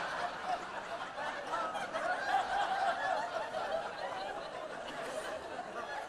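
A theatre audience laughing together at a joke, many voices at once, the laughter gradually dying down.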